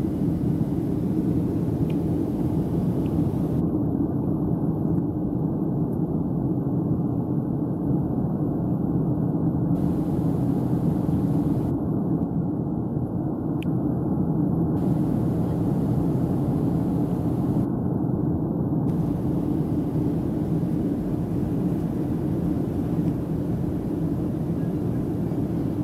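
Steady, low drone inside the cabin of a Boeing 737-700 in flight: its engines and the airflow over the fuselage, heard from a window seat over the wing.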